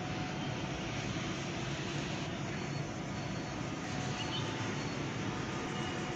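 Wind buffeting a phone's microphone: a steady rushing noise with an uneven low rumble.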